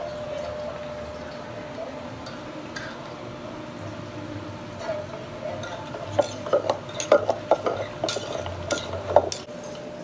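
Wooden pestle knocking and scraping in a mortar while rice noodles and tomatoes are pounded and mixed for a Lao noodle salad. The knocks come in a quick, irregular run in the last few seconds.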